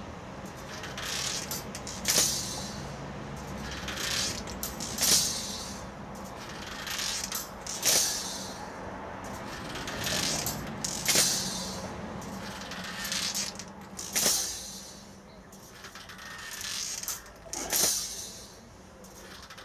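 Steel coil spring of a Haoying Gold 105 kg hard twister (bending bar) being bent shut and released over and over, its coils clinking and scraping. The sound peaks sharply about every three seconds, once for each closure.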